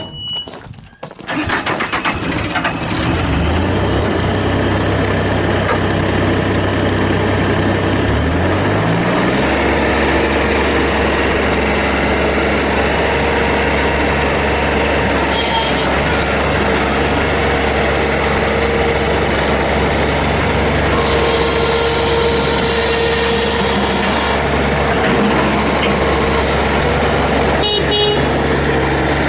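Bobcat S450 skid steer's diesel engine cranking and catching, settling to a steady idle, then throttled up about eight seconds in and running steadily at higher revs.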